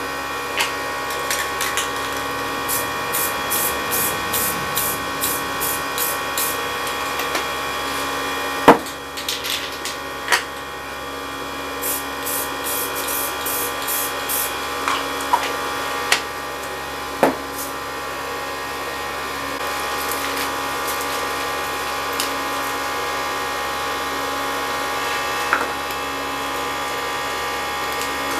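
Aerosol spray paint cans being shaken, the mixing ball rattling about three times a second in two runs, with a few sharp knocks of cans set down on the table. A steady mechanical hum runs underneath.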